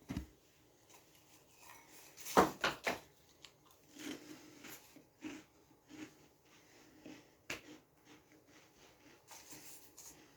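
Handling noises in a small room: a quick run of sharp clicks and knocks a couple of seconds in, then softer scattered taps and rustles, another single click later on, and a brief hiss near the end.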